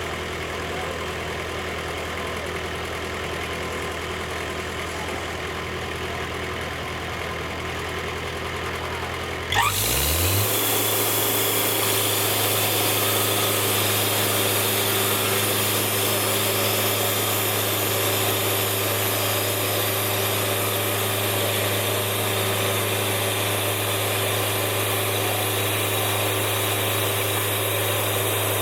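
Sawmill engine idling, then revving up about ten seconds in and running on steadily at high speed, louder.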